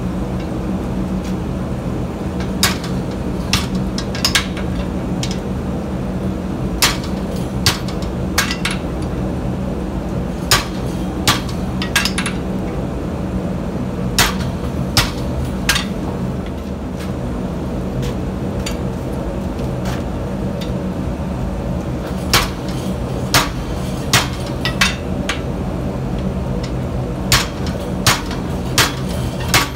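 Ball-peen hammer striking a glowing steel end in scattered blows, some single and some in quick pairs or threes, with a pause of about six seconds midway. A steady low hum runs underneath.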